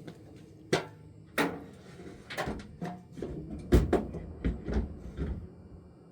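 Irregular knocks and clatters, about seven in all, of tools or parts being handled and set down. The loudest comes a little past the middle.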